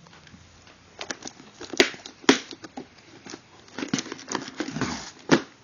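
Thin plastic baggies crinkling and hard plastic clicks and knocks as plastic storage cases full of bagged toy cars are handled. Several sharp clicks, the loudest about two seconds in, with a stretch of dense crinkling just before the end.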